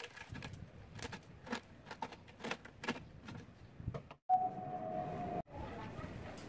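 Pliers crunching and snapping bits of hardened cement from the wall of a cement-and-fabric pot to open a hole near its base, a series of sharp cracks about two a second. Near the end, after a brief dropout, a steady high tone lasts about a second.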